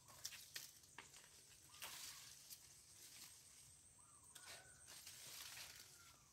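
Faint rustling and snapping of coffee-bush leaves and twigs as a small monkey climbs through the branches, with sharp little clicks and a few short, faint squeaks.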